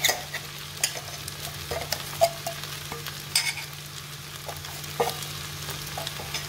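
Sabudana khichdi mixture sizzling lightly in a kadhai on the gas, with several short taps and scrapes as a steel bowl and wooden spatula knock against the pan while ground peanuts are tipped in.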